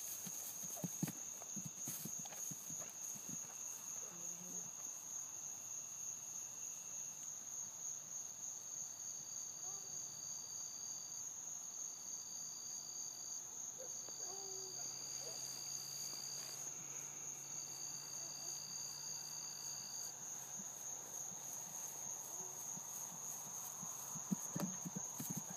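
A steady, high-pitched chorus of insects, likely crickets, trilling without a break. There are a few soft thuds of a horse's hooves on grass about a second in and again near the end.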